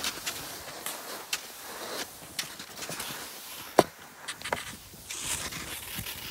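Cross-country skis swishing over a groomed snow trail, with the repeated light clicks of ski poles planting. One sharper click comes about four seconds in.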